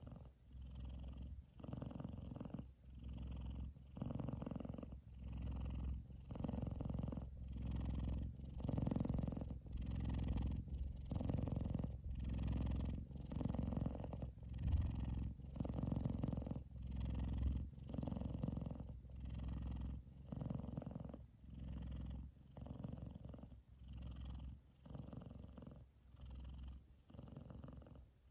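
F2 Savannah cat purring loudly while asleep, in a steady rhythm of rough pulses, about one a second with each breath, swelling towards the middle and easing off a little near the end.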